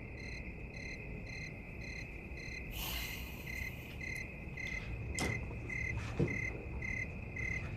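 Crickets chirping, a steady high trill with evenly spaced chirps about twice a second. A brief hiss comes about three seconds in, a sharp click about five seconds in and a soft thump about six seconds in.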